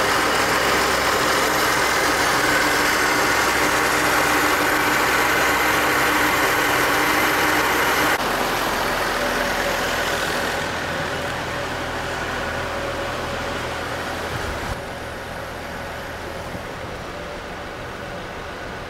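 Mercedes M110 twin-cam straight-six with K-Jetronic injection idling steadily at operating temperature, very noisy. Its sound gets quieter in two steps, about eight seconds in and again near the end, as it is heard from further off.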